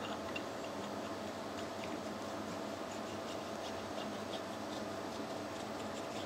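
Faint, scattered light clicks of small steel parts being handled against a steady background hum.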